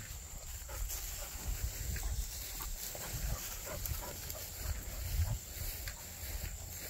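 A bird dog panting and sniffing as she hunts through tall grass on a check cord, with irregular soft footsteps swishing through the grass.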